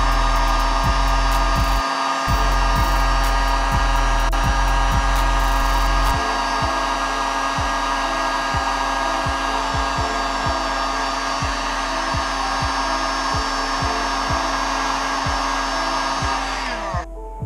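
Electric heat gun running steadily, shrinking heat-shrink tubing over freshly soldered 8mm bullet connectors on motor leads; near the end it is switched off and winds down with a falling pitch.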